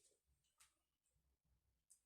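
Near silence: room tone, with two faint clicks, one about half a second in and one near the end.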